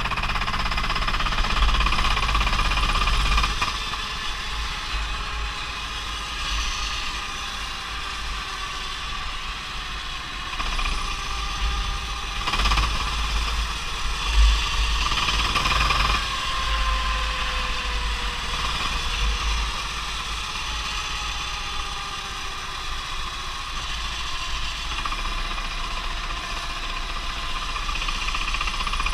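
Go-kart engine running at speed, its pitch rising and falling with the throttle through the corners. A deep rumble of wind and vibration sits under it on the kart-mounted camera.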